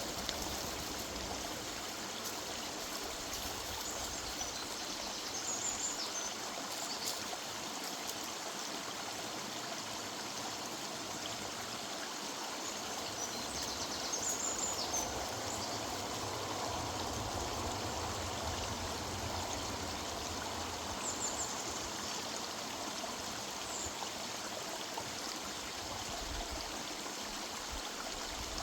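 River water running steadily over stones, a constant rushing with a little trickling, and a few brief high bird chirps here and there.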